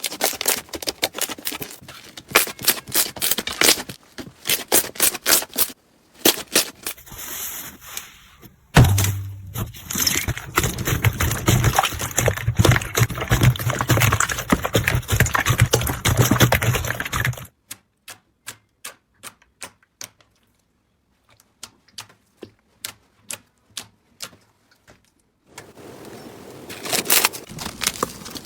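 Slime being squeezed, poked and pressed: rapid sticky pops and clicks, a long stretch of dense crackling over a low hum, then single pops about one or two a second.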